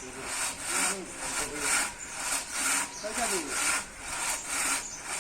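Saw cutting through wood in steady back-and-forth strokes, about two rasping strokes a second.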